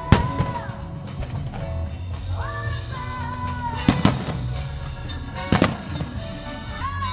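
Aerial firework shells bursting with sharp booms, three standing out: right at the start, about four seconds in and about five and a half seconds in, over music with a held melody line.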